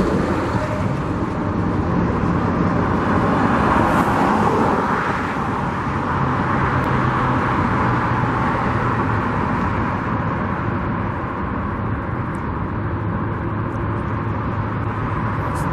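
Steady road traffic noise, vehicles running past with a low engine hum underneath.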